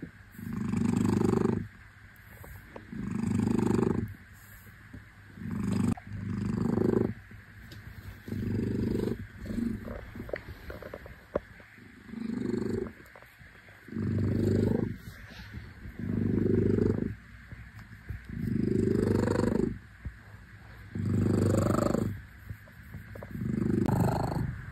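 A Dragon Li (Li Hua) tabby cat purring close to the microphone while being stroked. The purr swells and fades in an even rhythm, a loud stretch of about a second every two seconds or so, with softer purring between.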